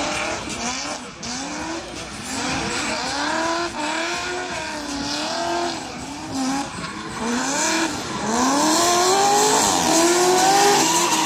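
Drift car engine revving hard, its pitch climbing and dropping about once a second as the throttle is worked, with tyres squealing and skidding. It gets louder for the last three seconds.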